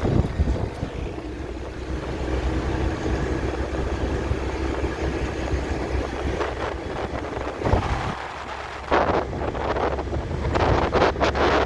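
Street traffic and a motor scooter's engine heard while riding, with wind buffeting the phone's microphone. The buffeting comes in strong gusts from about nine seconds in.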